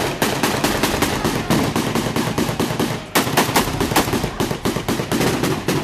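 Rapid automatic gunfire, about six shots a second in quick bursts, with a brief pause about three seconds in, then cutting off suddenly.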